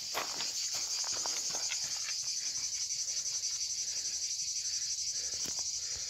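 A steady high-pitched chorus of insects, with the quick regular footfalls of a runner on a dirt path underneath.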